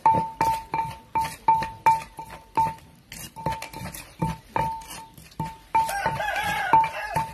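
Wooden pestle pounding papaya salad in a clay mortar, about three strokes a second, each knock ringing briefly. A rooster crows about six seconds in.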